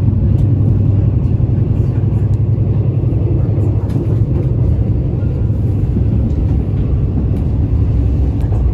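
Steady low rumble of a moving passenger train heard from inside the carriage, with a few faint clicks.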